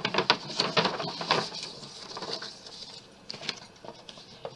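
Paper and thin card rustling and crackling as a poster and other paper inserts from a CD album package are handled. A quick run of crinkles in the first second and a half, then sparser rustles.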